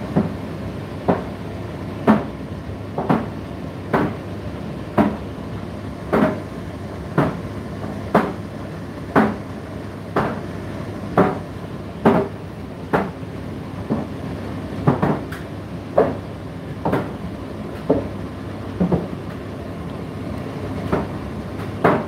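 Indesit IDC8T3 condenser tumble dryer running mid-cycle: a steady hum from the motor and fan with a knock about once a second as the load tumbles in the turning drum.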